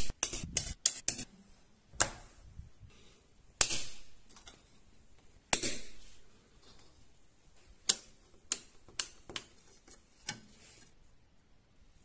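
Neodymium cube magnets snapping down one by one onto a steel plate with sharp metallic clicks. There is a quick cluster of clicks at the start, then single clicks every second or two.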